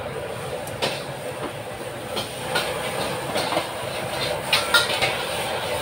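Stir-frying in a wok: a metal spatula clanks and scrapes against the wok about half a dozen times, the loudest strikes near the end, over the steady rushing of the gas wok burner.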